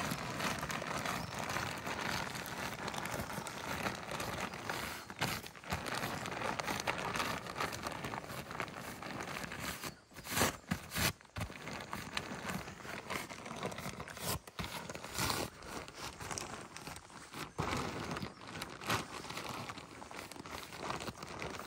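The deflated Dometic Pico inflatable swag's fabric crinkling and rustling as it is rolled up tight and pressed down, with a few louder crackles about halfway through.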